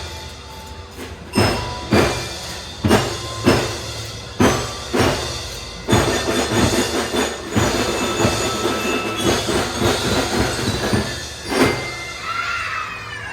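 Children's drum band playing: loud accented drum and cymbal hits spaced about half a second to a second apart, then steadier, denser playing with ringing metallic notes held over it. Voices shouting and cheering come in near the end.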